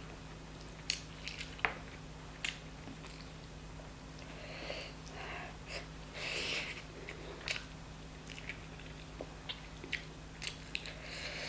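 Close-miked eating sounds: chewing and biting chicken curry and rice, with scattered wet mouth clicks and smacks over a steady low hum.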